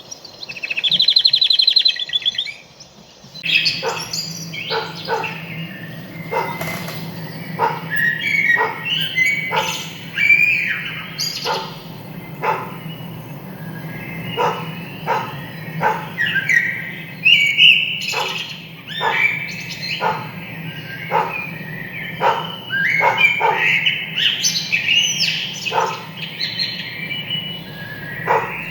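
Small birds chirping and twittering, with short sharp dog yaps scattered among them, over a steady low hum. A loud rapid buzzy trill comes about a second in.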